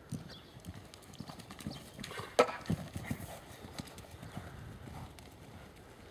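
Hoofbeats of a showjumping mare cantering on a sand arena: soft, irregular thuds, with one sharp, loud bang about two and a half seconds in.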